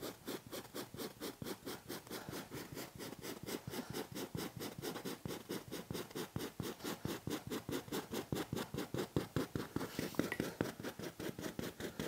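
Small rubber-edged pet hair removal brush (Lilly Brush) scraped rapidly back and forth over a fabric dog bed, a steady run of short scratching strokes about six a second, raking up dog hair that is matted into the fabric.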